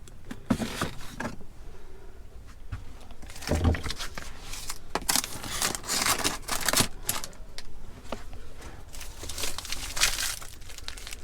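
Plastic food packaging rustling and crinkling in irregular bursts as groceries are handled and put back into a fridge, with a few knocks of items being set down and one heavier thump about four seconds in.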